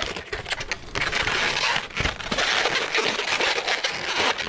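Inflated latex twisting balloons rubbing and squeaking against each other and against the hands as a finished balloon sculpture is squeezed and straightened: a continuous, scratchy rubbing.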